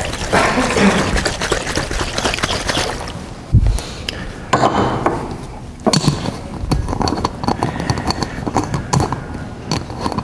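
Water sloshing in two stoppered glass flasks shaken hard, to dissolve calcium chloride in one and calcium carbonate in the other. About three and a half seconds in comes a thump, then a run of glass clinks and knocks as bottles are handled on the bench.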